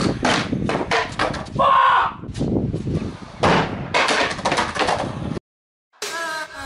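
Stunt scooter's metal deck and wheels striking and grinding along a concrete ledge: a rapid run of sharp knocks and clattering impacts for about five seconds. After a brief silence, electronic music starts near the end.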